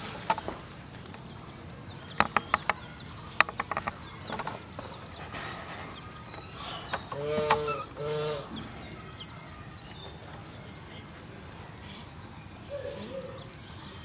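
Domestic hen clucking: two short calls about seven and eight seconds in, and a softer one near the end, over the high peeping of her chicks. A few sharp clicks come between two and four seconds in.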